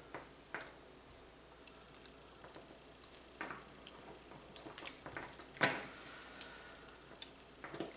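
Irregular light clicks and taps from handling the small plastic and metal parts of a replacement electrical plug and a screwdriver during wiring, with one louder click about five and a half seconds in.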